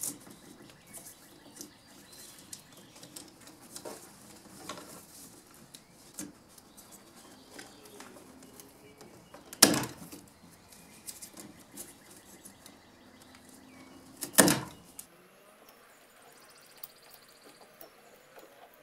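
Hands handling electrical wires and tape labels at a plastic electrical box: faint rustling and small ticks, with two sharp, louder snaps about ten and fifteen seconds in.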